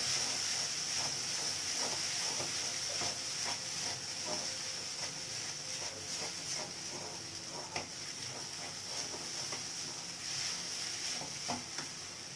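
Noodles frying in an aluminium kadai: a steady sizzle, with scattered scrapes and taps of the stirring utensils against the pan.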